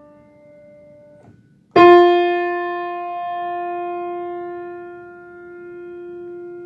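Single piano note F, the F above middle C, struck on a Schimmel piano about two seconds in and left to ring, slowly fading. Before it, the faint tail of the previous note, a D, is damped about a second in.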